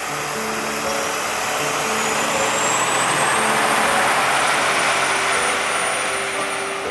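Vehicle running noise that swells to a peak about halfway through and then eases off, with a thin high whine rising in pitch and then holding steady. Background music with sustained notes plays underneath.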